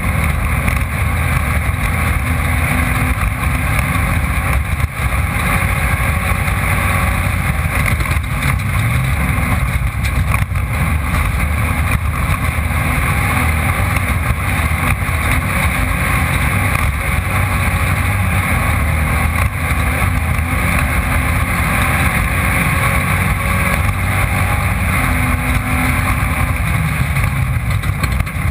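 Off-road race car's engine running hard at speed without a break, heard loud and steady from the camera mounted on board, with some wind noise.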